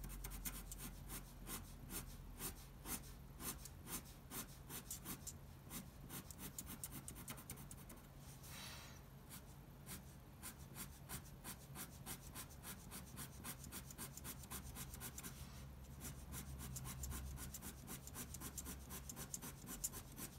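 Ink pen scratching on paper in a rapid series of short hatching strokes, cross-hatching lines one after another, with a longer stroke about eight seconds in.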